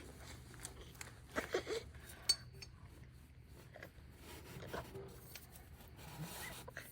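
A few faint metallic clinks and taps, as of tools or parts being handled, with one sharper clink about two seconds in.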